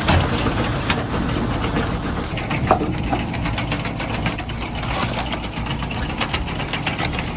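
Homemade firewood processor running: a steady machine hum with scattered clanks and knocks and high squeaks.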